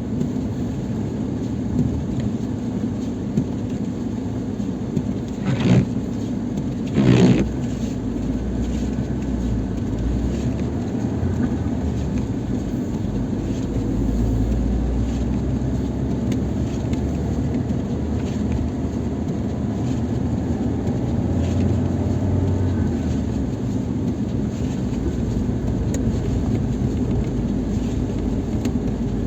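Lada Niva Travel's four-cylinder petrol engine running steadily as the car drives through snow, with two loud thumps about six and seven seconds in.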